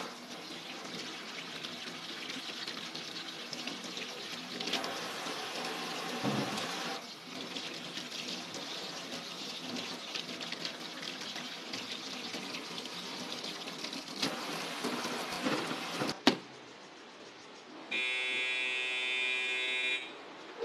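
Tap water running from a spray aerator into a stainless steel sink while hands rinse and rub salted duck egg yolks under the stream. About sixteen seconds in the water stops with a click; near the end a steady buzzing tone sounds for about two seconds and ends with a click.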